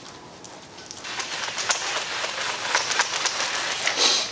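Hand-pump sprayer spraying liquid onto a wet car door and sill. A pattering hiss starts about a second in and holds.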